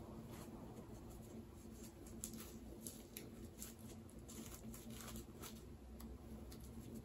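Soft, irregular crinkling and ticking of packing material being handled and unwrapped by hand, over a faint steady hum.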